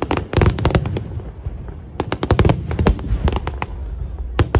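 Aerial fireworks shells bursting overhead: rapid clusters of sharp cracks and bangs, with a low rumbling echo between the volleys.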